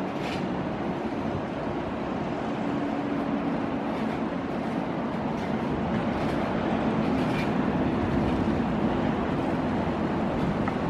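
Steady rumble of a passenger train's 25T coaches rolling along the rails, with a few faint clicks, growing a little louder near the end.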